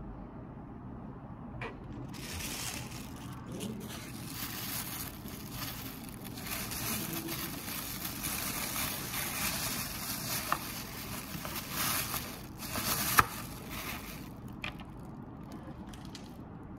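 Rustling, crackling handling noise for most of the stretch, with scattered clicks and one sharp snap about three-quarters of the way through.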